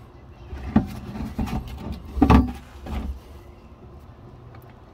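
Handling knocks and scrapes under the car at the differential, as a plastic bottle used to catch the gear oil is moved away, a few knocks between about one and three seconds in, the loudest about two seconds in.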